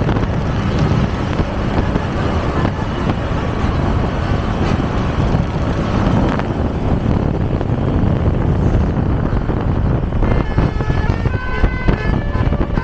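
Steady road and wind noise from travelling at speed behind a bus. About ten seconds in, the bus's telolet basuri horn starts playing a tune of short, stepped notes.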